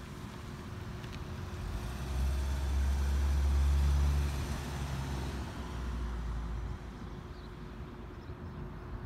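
A car driving past, its low engine and tyre rumble swelling about two seconds in and dying away by about seven seconds, over a faint steady hum.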